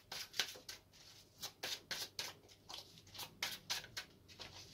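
Egyptian tarot deck being shuffled by hand: a quick run of short papery flicks and slides, a few each second.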